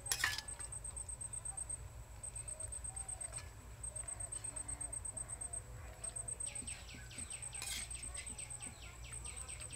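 Rural outdoor ambience: an insect's high, pulsing buzz repeating in short groups, birds calling, with a quick run of falling chirps about two-thirds of the way through. A single sharp clink right at the start is the loudest moment.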